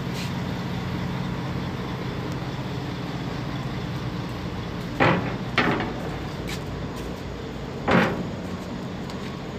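Steady low engine hum of a river ferry carrying vehicles, broken by three sharp knocks: two half a second apart about five seconds in, and one near eight seconds.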